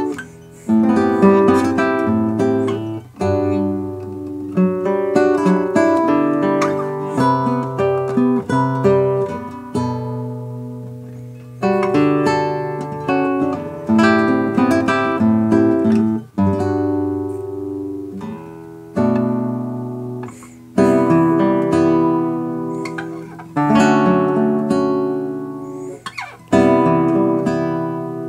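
Nylon-string classical guitar played solo: plucked chords and melody notes that ring on and fade, in phrases with short breaths between them.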